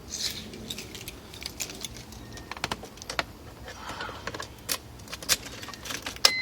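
Car keys jangling and clicking, with scattered sharp clicks, as the key is handled to switch on the car's power. A car's electronic warning chime begins right at the end.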